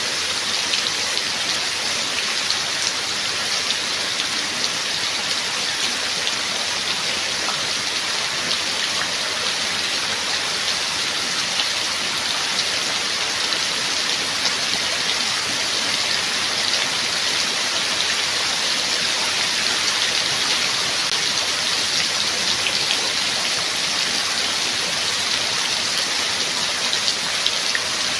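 Steady rain falling, an even hiss with many small drop ticks, with no thunder.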